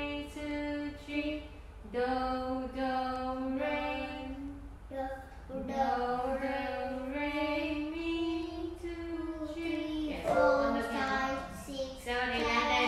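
A boy and a woman singing a simple beginner's melody together in solfège syllables, one held note after another in slow steps, with short pauses between phrases.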